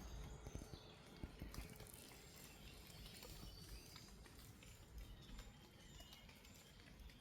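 Faint forest ambience: scattered light footfalls on the forest floor and a few short, high bird chirps from a distance.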